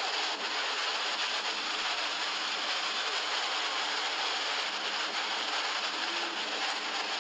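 A torrent of muddy floodwater, a lahar, rushing down a street after heavy rain: a steady, even rushing noise.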